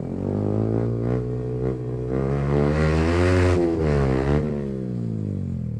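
Yamaha R15M's 155 cc single-cylinder engine through an aftermarket full exhaust, rising in revs for about three seconds, then falling away as the throttle is closed.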